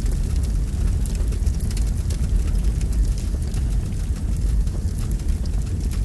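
Large fire burning, a steady deep rumble of flames with frequent small sharp crackles.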